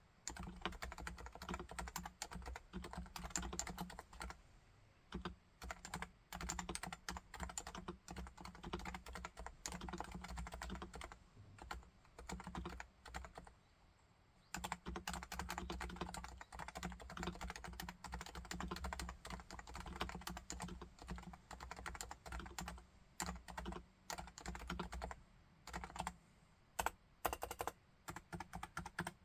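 Typing on a Topre Realforce R2TLSA silent electrostatic-capacitive keyboard with 45 g keys: fast runs of soft, damped keystrokes with brief pauses, and a few single heavier strokes near the end.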